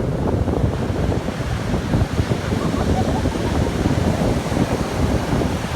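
Surf from Hurricane Patricia's swell breaking, heavy and rumbling, with wind buffeting the microphone.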